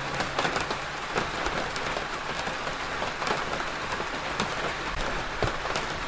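Steady rain falling on a hard surface, an even hiss with individual drops ticking through it. A low held note of music stops just after the start, leaving the rain alone.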